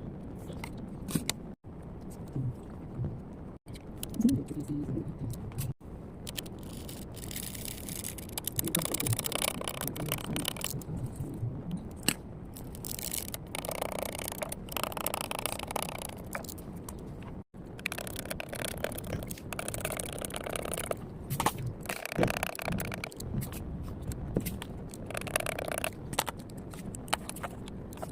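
Soldering work on a circuit board: irregular scraping and crackling from the iron and tools, with stretches of hiss, broken by a few brief drops to silence.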